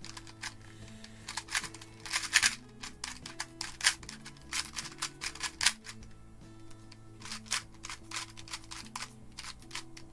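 GAN 251M Leap magnetic 2x2 speedcube being turned fast during a solve: quick clusters of sharp plastic clicks with short pauses between them.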